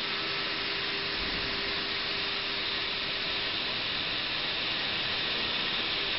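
ATC CNC router running, a steady hiss with a faint steady tone underneath.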